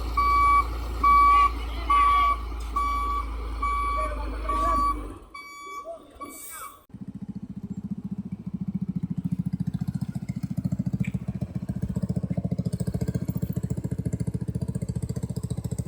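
A truck's reversing alarm beeping about three times every two seconds over its low engine hum, stopping about five seconds in. After a brief lull, a small engine runs with a fast, even throb.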